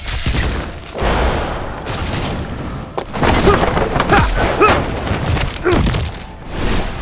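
Action-scene sound effects: a continuous rushing roar with booms and thuds, and a few short rising-and-falling pitched sounds about halfway through.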